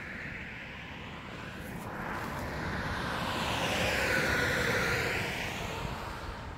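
A vehicle passing on the road, its noise swelling to its loudest about four seconds in and then fading away.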